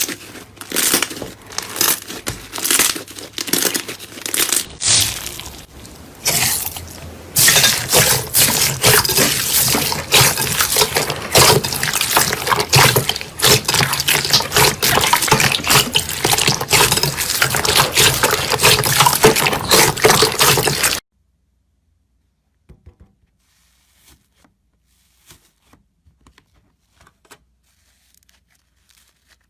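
Slime being squeezed and worked by hand. First comes a run of separate crackling pops about twice a second, then a dense, wet crackling squish, which stops abruptly about 21 seconds in and leaves near silence with a few faint clicks.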